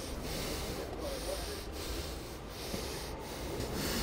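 Steady hiss and low rumble of background noise inside a car cabin, with no distinct event.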